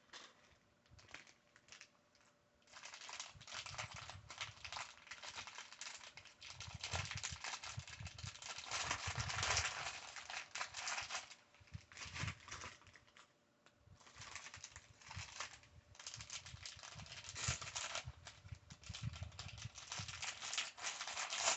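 Clear plastic parts bag of small toy building-brick pieces being handled and shaken: crinkling plastic with the pieces rattling and clicking inside. It starts about two and a half seconds in and goes on in uneven runs, with a short pause near the middle.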